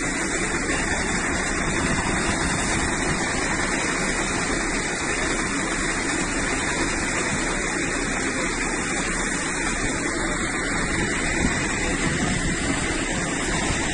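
Steady rushing hiss of a fire hose spraying water onto a burning speedboat to put the fire out.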